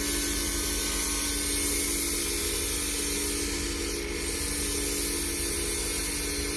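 320-grit sandpaper hissing against Padauk wood spinning at about 3,200 RPM, over the steady hum of the machine's motor. The hiss dips briefly about four seconds in.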